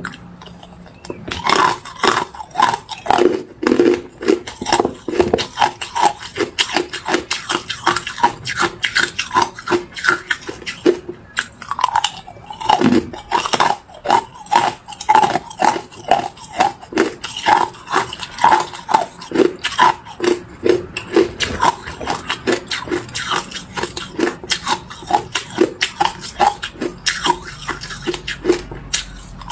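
Hard ice cubes dusted with matcha powder being bitten and crunched in the mouth, close up, with one sharp crunch after another.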